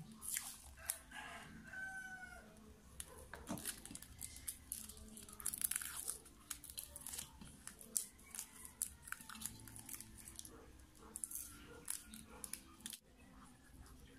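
Handling noises from wiring a half-horsepower water pump motor's stator: scattered clicks, taps and rustling of wire leads and plastic insulation between the fingers. A short bird call sounds about two seconds in.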